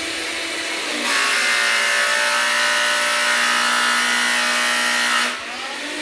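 Electrolux Ergorapido cordless stick vacuum running. About a second in, the BrushRollClean foot button is held down and a louder grinding sound joins as the brush roll's blade shreds the hair and thread wound round it. The grinding stops after about four seconds, leaving the vacuum's steady motor.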